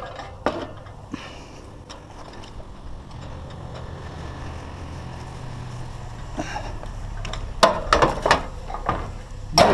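Scrap metal being handled: a few sharp clanks and knocks in the second half, over a low steady rumble.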